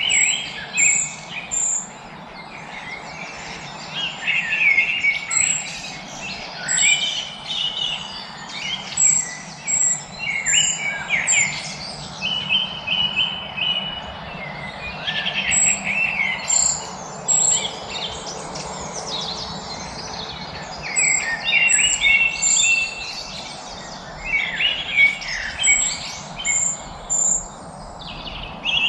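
Several songbirds singing and chirping in short, overlapping phrases, with a repeated thin high note, over a steady faint background of outdoor ambience.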